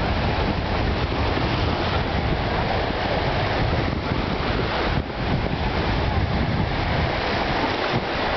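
Wind buffeting the microphone over the steady rush of sea surf, with a brief lull about five seconds in.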